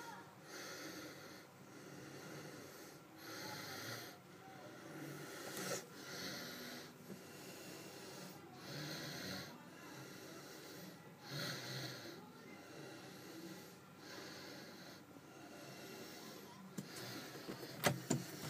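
A person breathing close to the microphone: slow, even breaths, with a few sharp clicks near the end.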